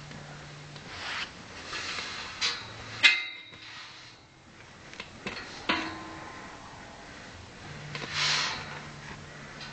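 A horse rubbing its rump against a wooden gate post and metal field gate to scratch an itch: irregular scraping swishes of hair and hide on wood and metal, with a sharp knock about three seconds in.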